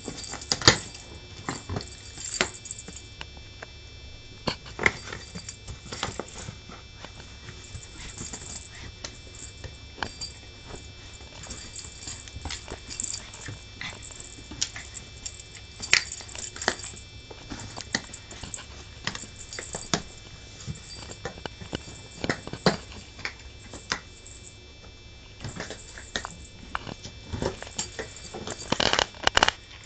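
Irregular light taps and bumps, several a second at times, then pausing, as a papillon dog noses and paws a balloon that bounces about.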